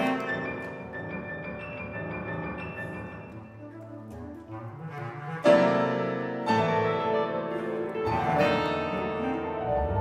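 Chamber ensemble of flute, clarinet, electric guitar, piano and double bass playing contemporary concert music. A soft passage of held notes gives way, about five and a half seconds in, to a sudden loud entry, with fresh accents about a second later and again near the end.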